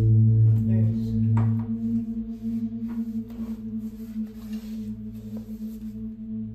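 A low, steady drone with overtones from a horror film score, loudest in the first two seconds, with a few faint light taps over it.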